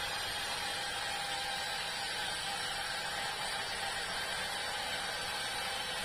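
Sawmill saw running steadily through a large meranti log: an even, continuous whir with a faint steady tone and no breaks.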